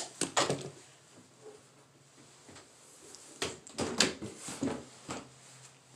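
Handling noise: a cluster of short knocks and rustling clatters at the start, then quiet, then another run of knocks about three and a half to five seconds in.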